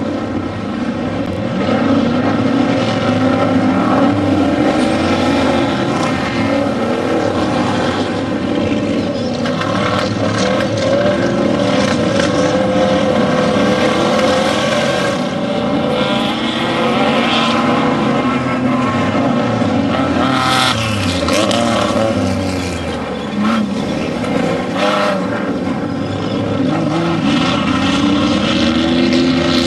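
Off-road desert race vehicles' engines running hard and revving, their pitch rising and falling as they work and pass, with scattered sharp clicks over the top.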